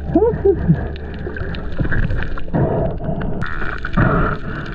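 Muffled underwater sound picked up by a camera held below the surface: a steady low rumble of water with gurgling. A few short rising-and-falling tones come in the first second.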